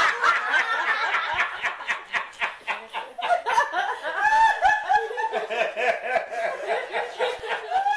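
Laughter from a group of people, breaking out all at once and going on with many overlapping voices.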